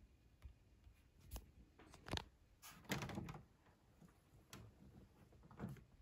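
A handful of faint knocks and clicks of hands handling things around an Epson flatbed scanner, with a louder scuffing knock about three seconds in.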